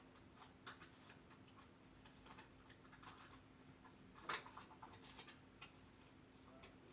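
Faint, scattered light clicks and taps of small metal lock picks being sorted and taken out of their case, with one louder clack about four seconds in.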